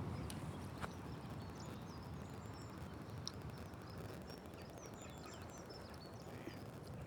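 Steady low rumble of surf and wind along a rocky shore, with small birds chirping high above it and a few sharp clicks.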